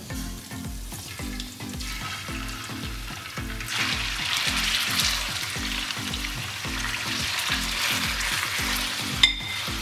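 Raw chicken strips sizzling in hot desi ghee on a large flat tawa, the sizzle growing loud about four seconds in as more chicken lands in the fat. There is a sharp tap near the end.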